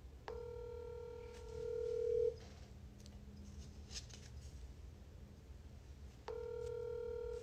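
Telephone ringback tone heard through a smartphone's speaker as an outgoing call waits to be answered. One steady two-second ring, a pause of about four seconds, then a second ring that begins about six seconds in.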